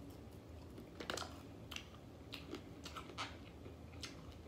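Close-up mouth sounds of eating fried chicken off the bone: faint, irregular wet clicks and smacks of chewing, with a handful of sharper clicks spread through.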